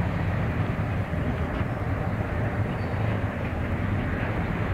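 Steady low rumble with a faint hiss: outdoor background noise.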